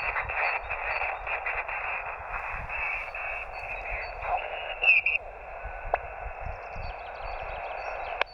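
LAB599 TX-500 shortwave transceiver's SSB receive audio: steady band hiss squeezed into a narrow voice band, with crackles and weak, garbled voices fading in and out. Two sharp clicks, one about two-thirds of the way through and one right at the end.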